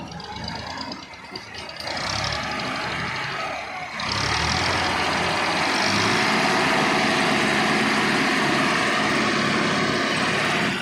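Tractor engine running, rising to a loud, steady working pitch about four seconds in and holding there, as if under load while lifting a log, then dropping off at the end.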